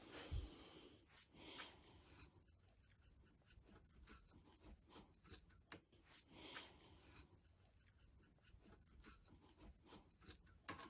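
Near silence, with faint rubbing, scraping and a few light clicks as parts are handled.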